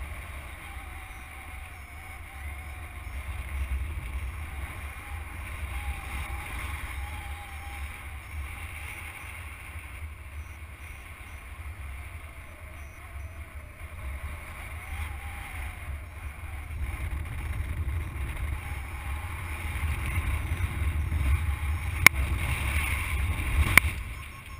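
Wind rumbling on the microphone of a camera carried in paraglider flight, a steady low buffeting that grows louder near the end. Two sharp clicks come near the end.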